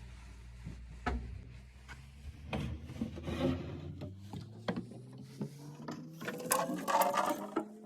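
Hand-preparation sounds: scattered knocks and clicks with rubbing and scraping, busiest near the end, over a low hum that slowly rises in pitch.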